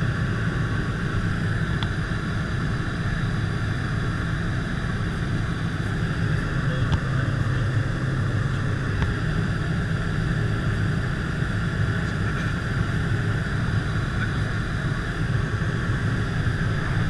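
Steady drone of a jump plane's engine and propeller, heard from inside the cabin.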